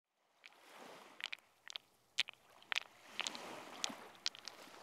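Experimental electroacoustic music: sparse, irregular clicks and knocks, made with percussion such as pebbles and driftwood, over a soft hiss that swells and fades and grows again about halfway through.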